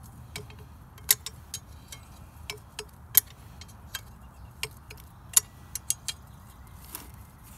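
Hand wrench clicking and clinking against the bolts of a Flint & Walling CJ101 pump as they are tightened down: more than a dozen sharp metal clicks at irregular intervals.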